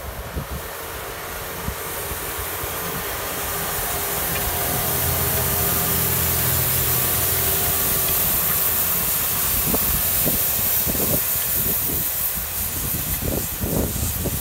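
A New Holland tractor pulling a KUHN Espro 6000 R seed drill through tilled soil. The engine's low hum and the drill's hiss swell as it passes close by, loudest midway, and rough crackling comes in near the end.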